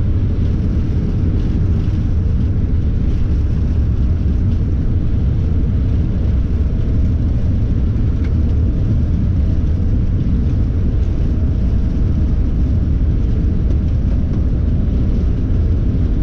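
Boeing 747-400 rolling out on the runway after touchdown, heard from the cockpit as a loud, steady low rumble that holds an even level throughout.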